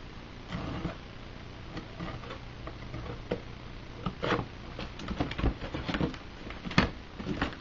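Cardboard mailing box being opened by hand: scattered scrapes, taps and rustles of cardboard and packing tape, getting busier in the second half, with one louder sharp crack near the end.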